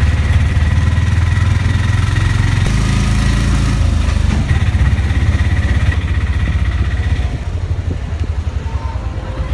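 An engine running steadily close by, with a deep pulsing rumble and a faint steady high whine; it eases off after about seven seconds.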